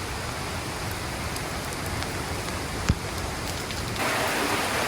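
Steady rain falling in the rainforest, with a single sharp tap about three seconds in. The rain gets a little louder near the end.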